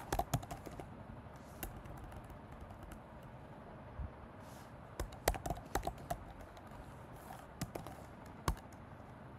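Computer keyboard being typed on: sharp key clicks in short, irregular bursts with pauses between them.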